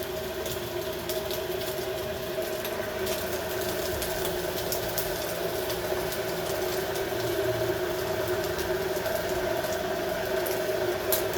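Chopped onion, pepper, chilli and ham frying in a dry pan with no oil, a faint sizzle with scattered small crackles, over a steady mechanical hum.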